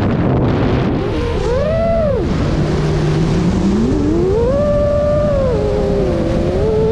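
FPV quadcopter's brushless motors and propellers whining, the pitch sweeping up and down with the throttle. The whine drops to a low hum a little over two seconds in, then climbs back and holds higher before dipping again near the end, over a rushing wind noise.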